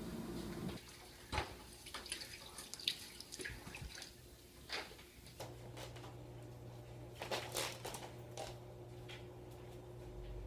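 Faint, irregular light clicks and ticks, spaced unevenly a second or so apart, with a low steady hum coming in about halfway through.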